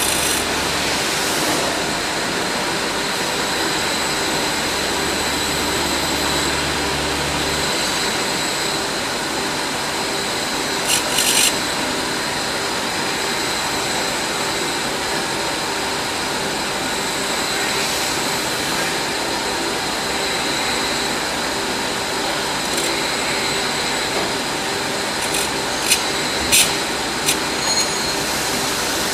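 Profile knife grinder running, its grinding wheel spinning steadily with a constant whine and the rasping of wheel on a steel profile knife. A few short sharp scrapes stand out about 11 seconds in and again several times near the end.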